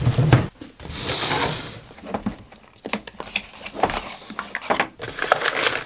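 Plastic packaging rustling and crinkling, then a cardboard box being handled and its flap opened, with scattered taps and scrapes.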